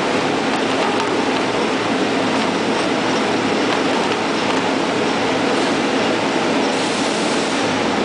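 Rotary die cutter for corrugated cardboard running, its die cylinder and anvil roll turning with a loud, steady mechanical noise.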